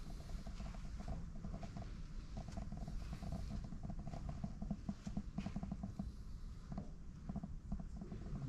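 Handling noise from a handheld camera being carried around: an irregular low rumble with light rustling and soft ticks.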